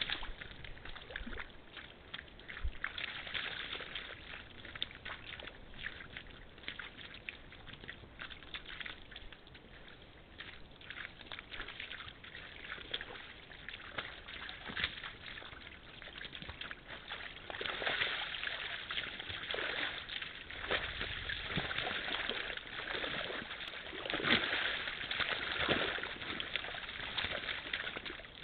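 Red deer hinds and calves sloshing and splashing in a shallow muddy puddle as they step and lie in the water, irregular splashes over a steady hiss that grows busier and louder after about two-thirds of the way through.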